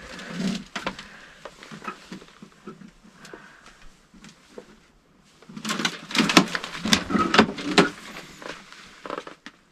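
Footsteps and handling on an old rotted wooden floor strewn with debris: scattered knocks and cracks, then a dense run of cracking and clattering about six seconds in.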